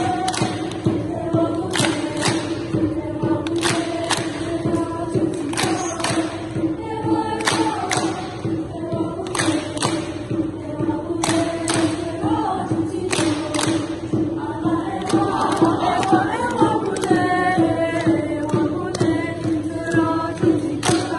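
Youth choir singing a steady, chant-like held low note with shorter vocal lines above it, punctuated by sharp hand claps at irregular intervals; a higher melodic line rises over the drone about two-thirds of the way through.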